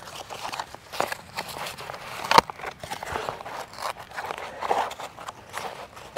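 Footsteps and rustling from cardboard sheets being handled and laid on the ground, with one sharp knock about two and a half seconds in.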